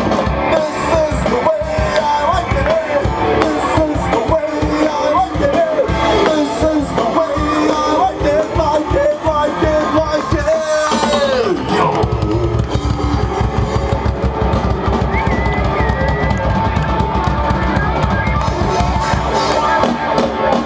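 Live rock band playing loud: drum kit, bass and electric guitar under a wavering lead melody line. About eleven seconds in, a note slides steeply down and the band moves into a denser section with a steady low end and a held high note over it.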